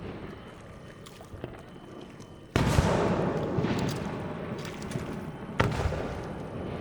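Aerial firework shells bursting: a sharp boom about two and a half seconds in, then a second boom about three seconds later. Each is followed by a long, fading rumble with scattered crackles.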